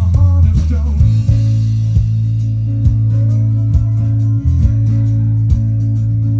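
Live folk-rock band playing an instrumental passage without singing: strummed acoustic guitar, electric guitar and bass over a drumbeat, with fiddle and whistle.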